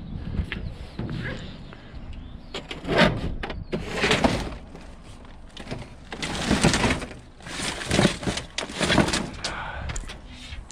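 Building waste being rummaged through and shifted in a skip: a run of about five clattering, crashing handfuls of debris with sharp knocks among them.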